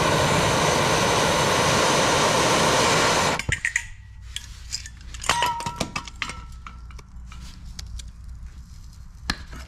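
Handheld gas torch burning steadily as it heats a rusted, seized nut on a strut rod, cutting off abruptly a little over three seconds in. After it, light metal clinks and taps with short rings as the tools and slip-joint pliers are handled on the nut.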